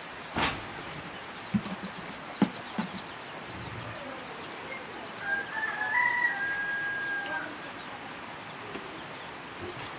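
A rooster crows once: a long call that starts about five seconds in and lasts about two seconds. A few short knocks come earlier.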